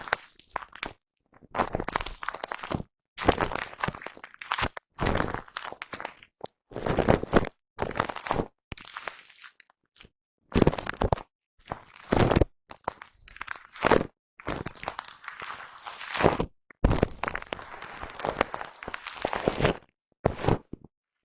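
Foam brush rubbed and brushed directly against the microphone, close up: a dozen or so scratchy, crunching strokes, most under a second and a couple of them longer, with short silent gaps between.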